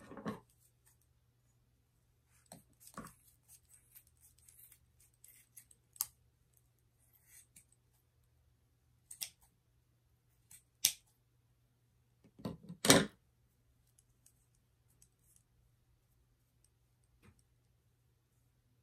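Kitchen scissors snipping through loops of cotton cord: a handful of separate short snips and clicks with pauses between them, the loudest a quick pair about two-thirds of the way through.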